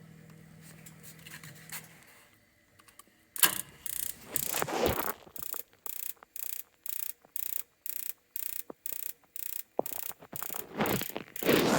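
Low steady hum of the boiler's automatic vent damper motor, which stops about two seconds in. About a second and a half later the pilot spark igniter starts ticking steadily, two to three sparks a second, trying to light the newly fitted pilot, with two spells of hiss among the clicks.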